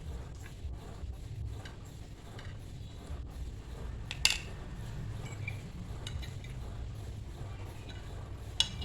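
Cutlery clinking against a bowl while noodles are eaten: a few light ticks, a sharp clink about four seconds in and two more near the end, over a steady low rumble.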